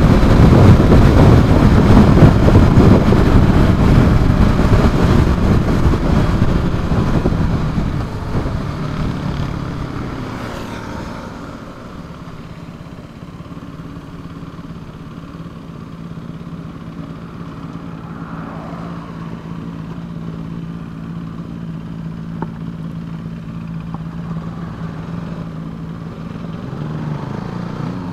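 Motorcycle riding at speed with loud wind and road noise, which fades as the bike slows about ten seconds in. After that the engine runs at low speed with a steady low hum that rises slightly near the end.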